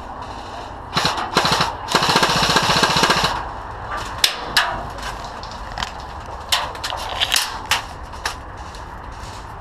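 Airsoft guns firing: a few single shots, then a rapid full-auto burst of just over a second, followed by scattered single shots.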